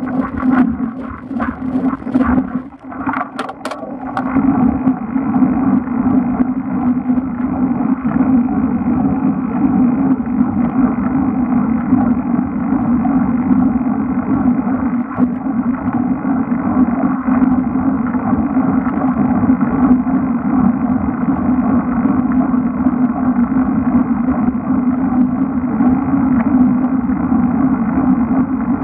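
Steady rush of wind and road rumble from a bicycle-mounted action camera in its waterproof housing, riding along on asphalt. There are a few sharp clicks and a brief dip in the first few seconds.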